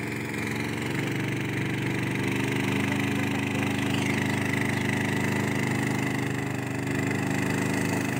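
Engine of a flat river ferry boat loaded with cars, running steadily with an even hum that grows a little louder about a second in.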